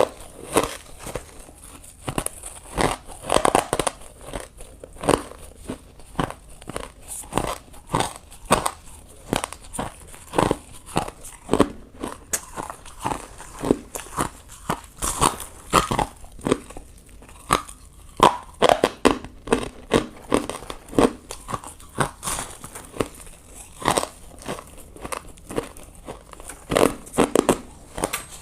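Ice being bitten and crunched close to the microphone: a run of sharp, irregular crunches, roughly one or two a second, with chewing between them.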